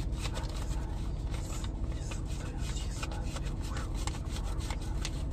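Paper banknotes rustling and rubbing as they are handled and counted by hand, in many quick irregular crinkles, over a faint steady hum.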